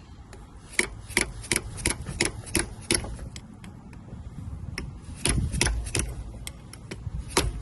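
Hammer blows on metal, driving a steel extension into a heated aluminium gear lever: a run of about seven sharp taps, about three a second, then a few more spaced strikes and one near the end.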